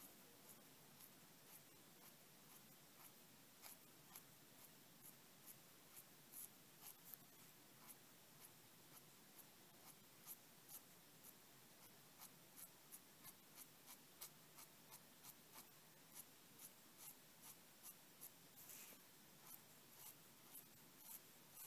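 Faint scratching of a crow quill pen's nib on paper in short, quick hatching strokes, about two or three a second.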